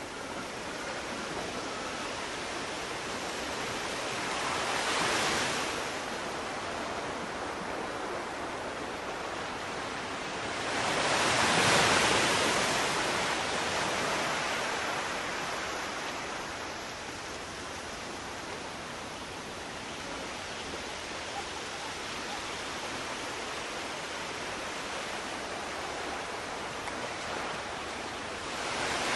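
Sea waves surging and washing back: a steady rushing sound that swells about five seconds in, more loudly around twelve seconds, and again near the end.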